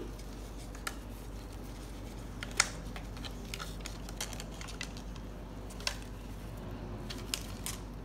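Sun conure chewing and tearing at the edge of a cardboard tube with its beak, shredding it as nest-building behaviour: scattered sharp crunches and clicks at irregular intervals, the loudest about two and a half seconds in.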